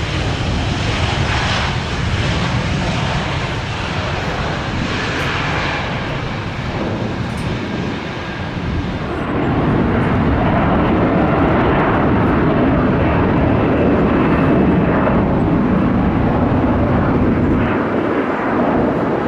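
Jet engines of an Airbus A319 rolling out on the runway after landing, a steady broad rush. About nine seconds in it gives way to the deeper, heavier rumble of an Airbus A330's engines at climb thrust just after takeoff.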